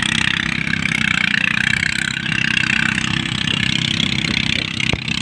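Rice thresher driven by a power tiller's engine, running steadily, with a steady whirring hiss from the threshing drum on top of the engine's low drone. One short sharp click near the end.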